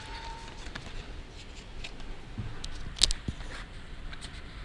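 Paper leaflets and cardboard packaging being handled: light rustling and small taps, with one sharper click about three seconds in.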